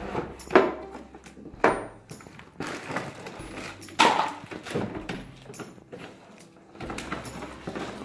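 Hard plastic toy-kitchen parts and a cardboard box being handled: several sharp knocks and clatters with rustling between them, the loudest about half a second in and again about four seconds in.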